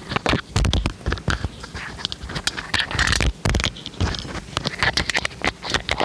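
Dishes and kitchen utensils being handled on a counter: an irregular run of clinks, knocks and scrapes.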